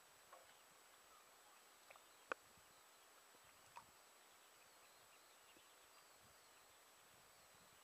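Near silence broken by a few brief small splashes of small brown trout jumping in a loch, the sharpest a little over two seconds in.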